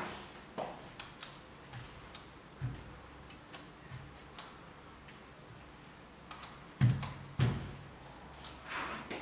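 Handling noises: scattered light clicks and soft knocks, with two heavier thumps about seven seconds in and a short rustle near the end.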